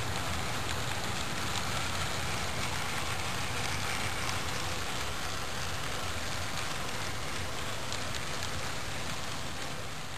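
HO scale model train of covered hopper cars rolling past on the track: a steady rattling rolling noise with a low hum underneath and faint scattered clicks.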